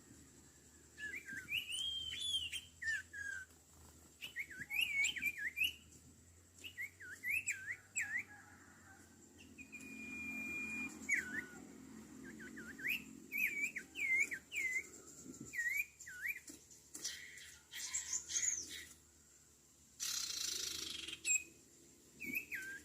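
Common iora (sirtu, cipoh) calling: clusters of short whistled notes that sweep up and down, repeated throughout. About ten seconds in there is one steady held whistle, and about twenty seconds in a short burst of rustling noise.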